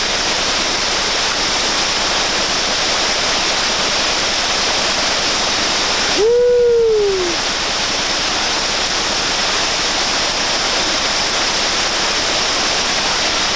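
Whitewater rapids of the Reventazón River rushing steadily. About six seconds in, a single short shout rises and falls in pitch.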